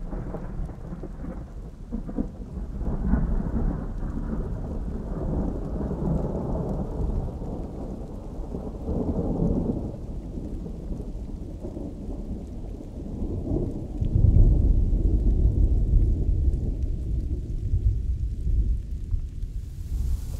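Steady rain with rolling thunder, the rumbles swelling several times, the deepest and loudest about two-thirds of the way in.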